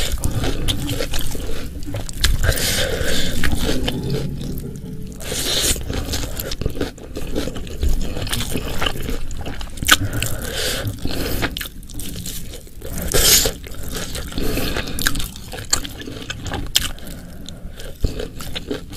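Close-miked eating: chewing and crunching with wet mouth sounds and scraping, irregular and continuous, from a meal of spiced beef, pickled vegetables, fried stink beans and rice.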